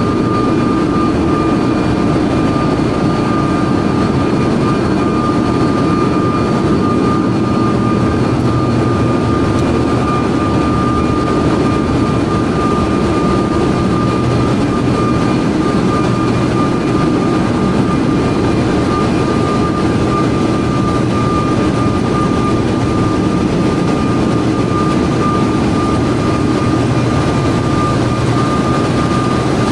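Loud, steady machinery noise of an LNG carrier's dual-fuel diesel-electric engine room: a dense low din with a constant high-pitched whine over it.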